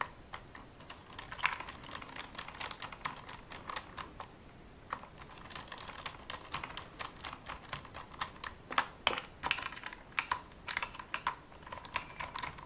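Light, quick, irregular clicks and taps of hands handling the plastic chassis, motor and wiring of an RC car during assembly.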